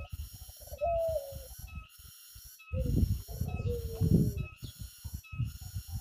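Ringneck (Barbary) doves cooing: short, low coos that fall slightly in pitch, one about a second in and more around three to four seconds in, as the white dove bows in its bow-coo display.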